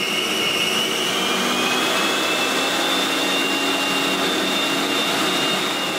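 Food processor motor running steadily, pureeing frozen mixed fruit as a little water is poured in; its whine rises slightly about two seconds in.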